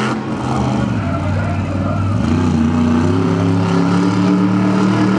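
Monster truck engine revving: its pitch falls off in the first second, then it revs up again about two seconds in and holds at high revs.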